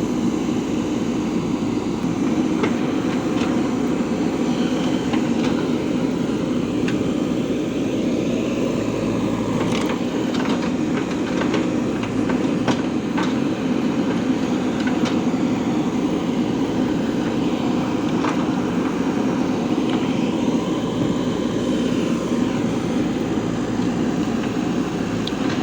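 JCB 3DX backhoe loader's diesel engine running steadily under work, with scattered short clanks and knocks, most of them in the middle stretch.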